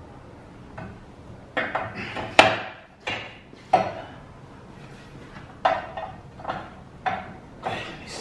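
A 28-inch aluminium wheel clanking against the turntable and clamps of a tyre-changing machine as it is set down and shifted, about eight sharp metallic knocks with a short ring, the loudest about two seconds in.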